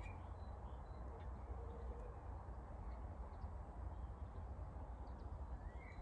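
Quiet outdoor ambience: a steady low wind rumble on the microphone, with a few faint bird chirps, one rising chirp near the end.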